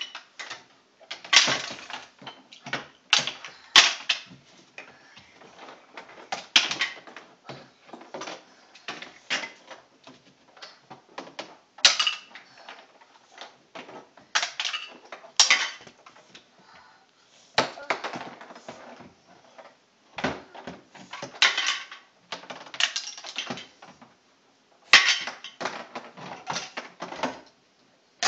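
Irregular clattering and knocking of hard plastic: a child rummaging among toys inside a plastic toy chest, with toys and the lid banging against its walls.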